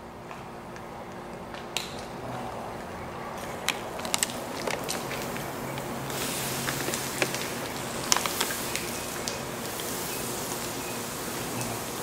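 Plasma cutter hissing as it cuts into the steel of a dump truck bed. The hiss grows louder about two seconds in and again about six seconds in, with sharp crackles and pops from asphalt burning in the bed, over a low steady hum.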